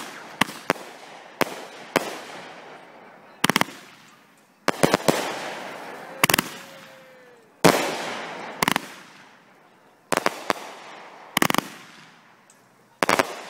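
Legend Fireworks 'Bustin' Loose' 500-gram, 30-shot salute cake firing: sharp bangs about every second or so, some in quick doubles and triples, each trailing off in a fading echo.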